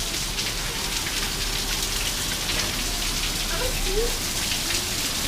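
Heavy storm rain pouring down steadily, with many small drops splashing.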